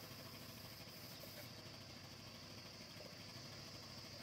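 Near silence: faint, steady background hiss with a thin, steady high tone.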